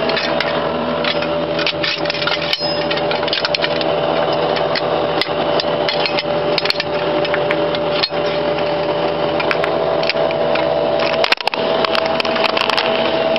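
Metal clicking and clanking of a .50 caliber machine-gun ammunition belt being handled and fed into the gun, over the steady hum of the military vehicle's machinery.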